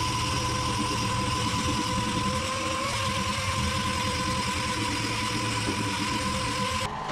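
Dual-action (DA) sander running steadily with a constant whine, sanding primer on car bodywork; the sound changes abruptly near the end.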